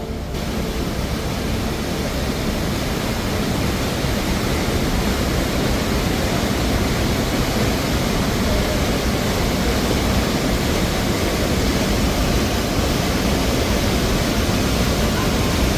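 Sheep River Falls pouring close by: a loud, steady rush of falling water that grows a little louder over the first few seconds.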